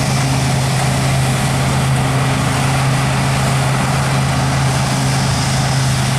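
Large diesel farm machine running steadily under load: a constant deep hum under a loud, even hiss.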